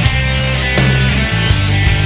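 Rock backing music with a steady drum beat, sustained bass notes and guitar.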